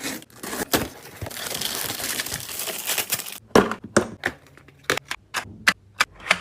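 Plastic parcel packaging being torn open and crinkled, a rustling tear for a couple of seconds, followed by a string of sharp clicks and crackles as the packaging is handled.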